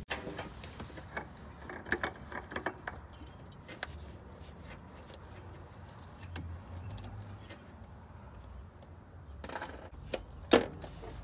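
Hands handling parts among the hoses of a pickup's engine bay: scattered light clicks and clinks, thickest in the first few seconds, with a sharper, louder click near the end.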